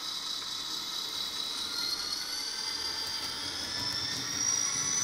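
DCC-controlled model diesel locomotive moving off along the track, giving a high, thin whine that climbs slowly and steadily in pitch as it gathers speed.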